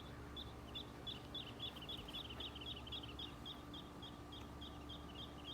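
Small birds calling: one short high note repeated about three times a second, with a quicker series of falling notes overlapping it through the middle, over a faint steady hum.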